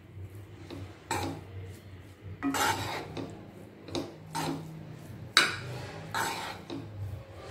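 Steel spatula scraping and turning fried rice and noodles in a non-stick kadai, in about seven irregular strokes with clinks against the pan. The sharpest clink comes about five and a half seconds in.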